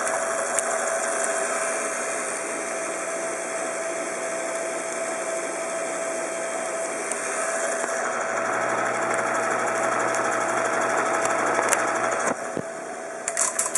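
Teletype tape transmitter-distributor set running steadily, its motor humming under a mechanical clatter as it works through the message. About eight seconds in a lower hum joins the sound, and near the end the running drops briefly before a fast, even clicking starts.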